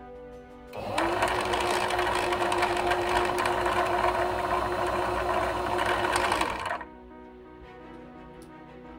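Singer Fashion Mate electric sewing machine running at a steady speed for about six seconds, starting up about a second in with a brief rise in pitch and stopping abruptly.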